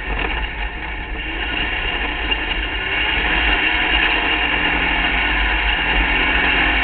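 Onboard sound of an open-wheel hill-climb race buggy at speed on a dirt road: the engine running hard under a heavy low rumble of wind on the microphone, growing louder about three seconds in.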